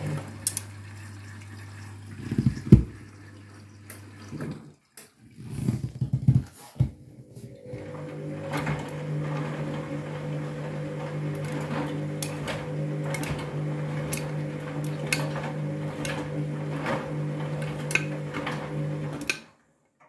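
Front-loading washing machine tumbling a wash load of backpacks: the drum motor hums and water sloshes. The drum stops about a second in, with a few knocks, then turns again from about eight seconds with regular sharp knocks from the load against the drum, and stops suddenly near the end.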